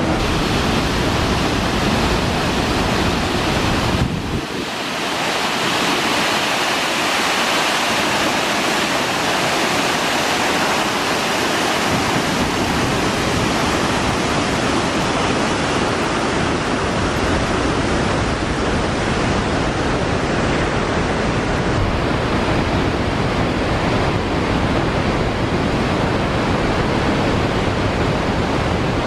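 Steady, dense rushing of Victoria Falls, water plunging into the gorge. The deep low end drops away about four seconds in and returns some eight seconds later.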